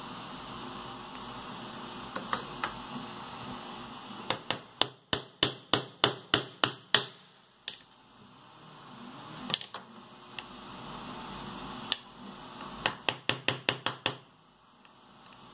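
Quick runs of sharp clicks from hand tools working a screw into a 3D-printed plastic part: about nine clicks a few seconds in, a few single ones, then another quick run near the end.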